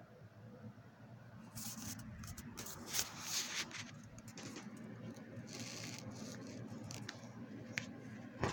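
Rustling and scraping from a phone being handled and carried, in short patches over a low steady hum.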